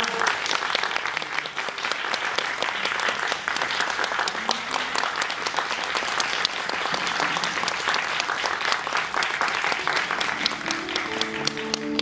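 Theatre audience applauding: dense, steady clapping, with the band's music faint underneath and coming up again near the end.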